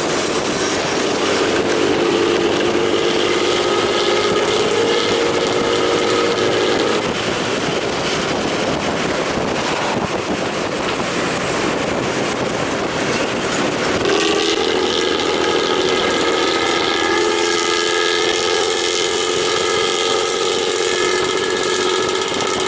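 Pantura intercity bus running through a loud, growling 'ngorok' exhaust: a steady droning note that drops out about seven seconds in, leaving rough road noise, and comes back strongly about fourteen seconds in.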